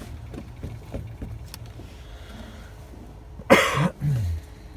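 A person coughs once, loud and sharp, about three and a half seconds in, over a low steady hum, with a few light clicks earlier.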